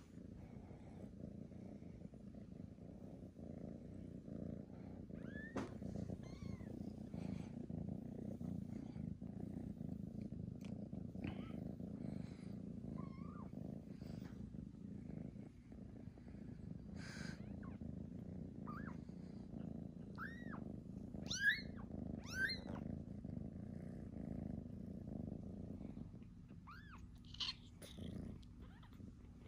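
Calico kitten purring steadily while being massaged, a sign of contentment; the low, continuous purr stops near the end. Several short, high kitten mews come over it, the loudest a little past the middle.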